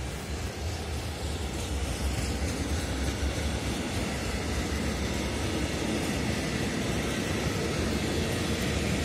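Freight train of container flat wagons with tank containers rolling past at low speed as it pulls away, a steady rumble of wheels on rail that grows a little louder about two seconds in.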